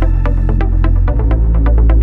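Electronic dance music with a fast, steady beat over a sustained bass line; the bass note changes about a second in.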